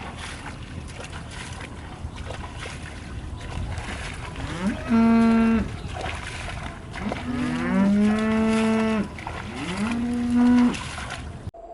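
Cows mooing: a short moo about five seconds in, then longer overlapping moos, each rising at its start and then held steady.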